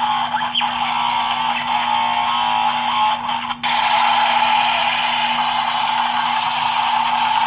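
Battery-powered toy power tool buzzing steadily. It cuts out for a moment about three and a half seconds in, then starts again.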